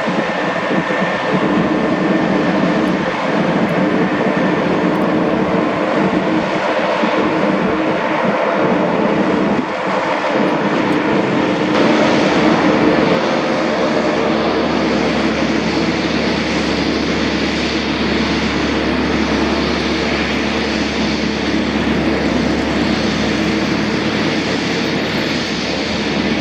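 An airplane's engine running loudly and steadily, with a deeper hum joining about halfway through.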